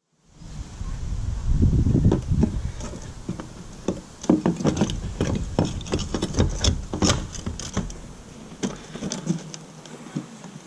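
Irregular clicks, knocks and scuffing of hands working metal and plastic fuel pump parts and tools, with low rustling handling noise close to the microphone. The clicks are busiest in the first two thirds and thin out towards the end.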